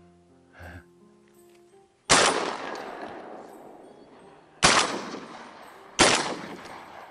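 Soft background music, then three shotgun shots about two and a half and then a second and a half apart, each with a long rolling tail; the third shot brings down the duck.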